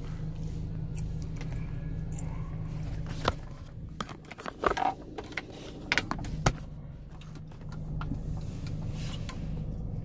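Steady low hum of a car idling, heard from inside the cabin. Between about three and seven seconds in come a series of sharp clicks and knocks from the recording phone being handled and set down.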